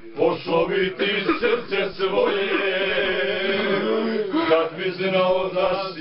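A group of men singing together without instruments, voices held on long notes that bend in pitch.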